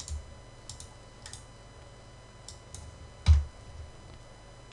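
About six scattered sharp clicks from a computer mouse and keyboard; the loudest, about three seconds in, carries a dull thump.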